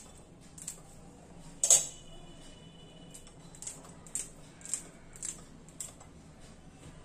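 Kitchen scissors snipping green chillies into small pieces over a plate: a series of short, sharp snips, the loudest one a little under two seconds in, then quicker snips about every half second.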